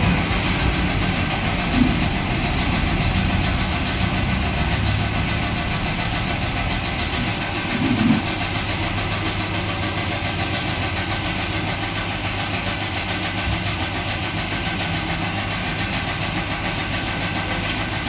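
Tyre changer machine running with a steady motor hum and low drone. Two short knocks of the tyre lever against the tyre and rim come about two and eight seconds in.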